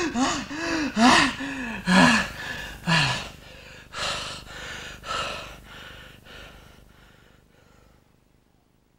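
A man grunting and groaning with strain, as if pushing a heavy load: a quick run of short strained groans in the first three seconds, then breathy gasps and pants, roughly one a second, that weaken and die away about eight seconds in.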